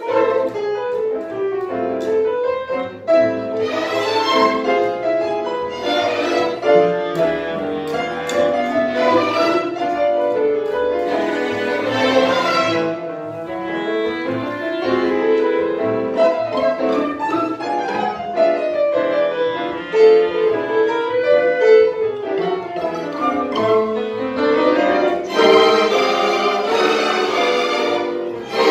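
Music school symphony orchestra playing a light popular-style piece, bowed strings carrying the melody with piano and cellos underneath.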